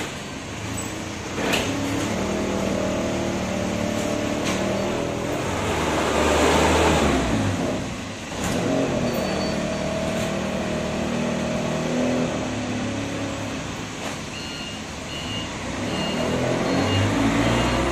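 Mitsubishi forklift's engine running and revving as it maneuvers, loudest about six to seven seconds in, with a few sharp knocks. Near the end a reversing beeper sounds in short repeated beeps.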